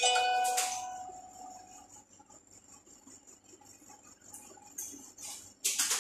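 A sharp clink of a kitchen utensil striking a dish or metal vessel, ringing out for about a second and a half. A brief clatter follows near the end.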